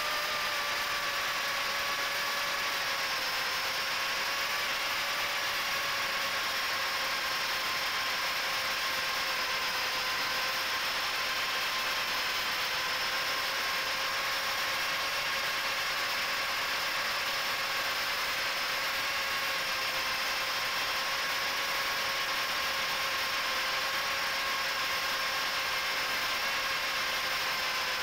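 Four brushless motors and three-inch propellers of an FPV miniquad (HGLRC 1104 7500kv motors, Gemfan 3018 props) whining steadily at an even throttle, picked up by the onboard camera's microphone. The pitch dips slightly in the first few seconds and then holds.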